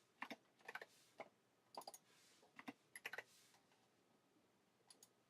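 Computer keyboard typing: short, faint clusters of keystrokes, about half a dozen groups with pauses between them and a last small group near the end.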